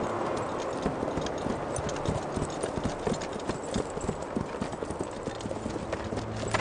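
Hooves of several horses clopping on hard, stony ground: a dense, uneven patter of hoof strikes from a group riding together.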